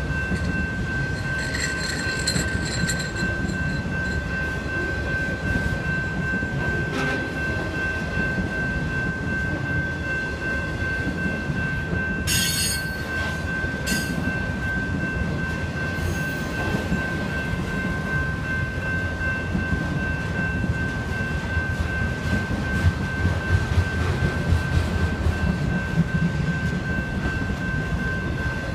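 Freight train of autorack cars rolling through a grade crossing: a steady low rumble of wheels on rail, with two short metallic screeches around the middle and heavier clunking of the wheels over the crossing toward the end. Over it, the crossing's electronic bell rings as a steady high tone.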